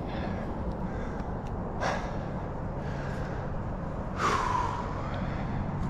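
A climber's breathing under exertion: a short sharp breath about two seconds in and a louder gasping exhale about four seconds in.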